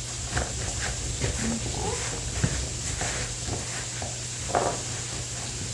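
Potatoes being patted dry with a paper towel and shifted about in a bowl: scattered short rustles and light knocks. Lamb chops searing in a skillet sizzle faintly underneath.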